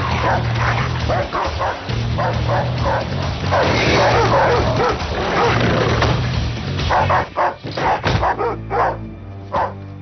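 Dogs barking rapidly and repeatedly over a film score with a steady low drone; the barking thins out and the sound drops about eight seconds in.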